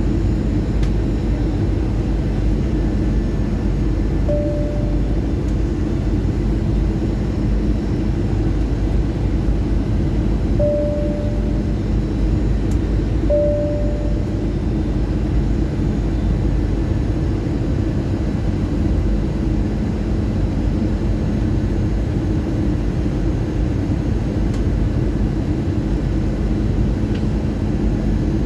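Airbus A320 in flight on approach: steady engine and airflow rumble with a low hum. Three short beeps sound in the first half.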